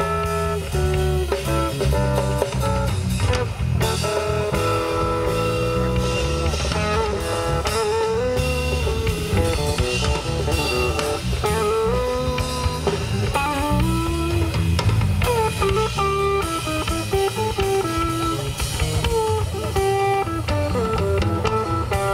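Live blues-rock power trio playing: an electric guitar plays a winding lead melody over electric bass and a drum kit.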